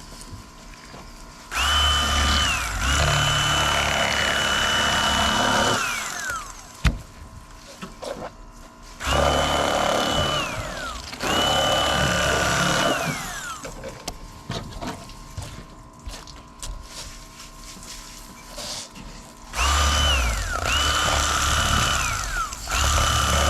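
Electric fillet knife cutting fish, switched on and off in about six separate runs. Each run is a steady motor whine that falls in pitch as the knife winds down.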